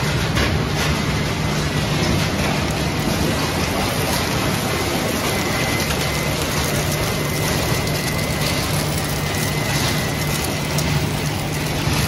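Steady machinery noise of a refrigerator recycling line, with a constant low hum, a thin high tone and a dense patter of small ticks.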